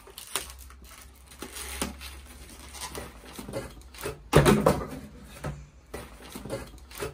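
Cardboard shipping box being torn open and handled, its flaps and packaging rustling, scraping and clicking. A short loud burst with a voice in it comes a little past four seconds in.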